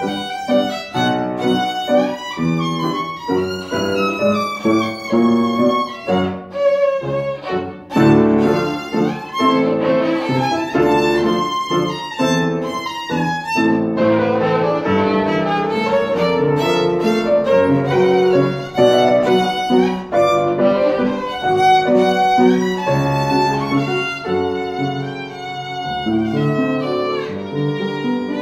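Violin playing a bowed melody with upright piano accompaniment.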